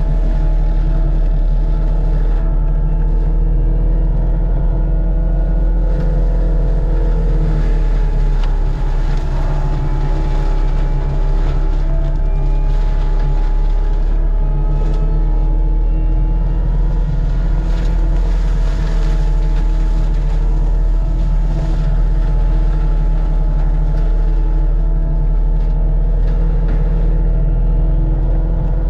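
Forestry mulching machine working: its diesel engine runs steadily under load while the drum mulching head spins, with scattered short cracks. The engine pitch sags for a couple of seconds about eight seconds in, then recovers.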